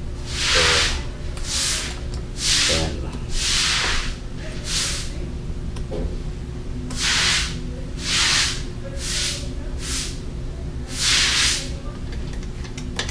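Aerosol spray can sprayed in about ten short bursts, each half a second to a second long, with short gaps between them.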